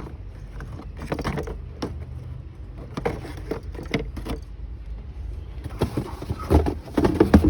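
Handling noise of plastic thermostat housings: scattered light clicks and knocks, thickening into a louder run of knocks and rattles in the last second and a half.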